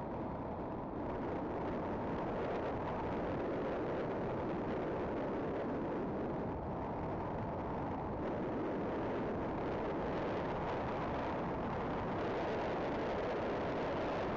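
Steady rushing wind and road noise from a motorcycle moving at speed, picked up by its mounted camera's microphone, with no distinct engine note standing out.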